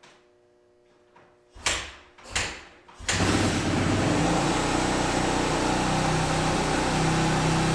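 Cold-soaked 2014 Kawasaki KX450F four-stroke single being kickstarted after months of sitting in the cold: two kicks with short bursts, then it catches about three seconds in and runs steadily.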